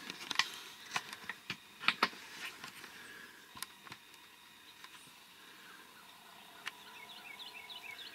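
A few sharp clicks and knocks in the first two seconds, the loudest about two seconds in, then a small bird giving a quick run of short, falling chirps near the end.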